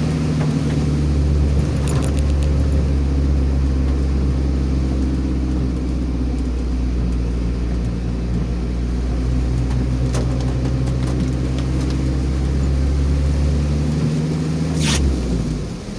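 Car engine and road noise heard from inside the cabin, steady, with the engine note shifting and dipping near the end.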